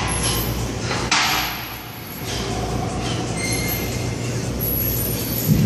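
A weightlifter's forceful breaths during heavy barbell front squats, over the steady hum of a gym: one hissing breath about a second in, and a low thump near the end.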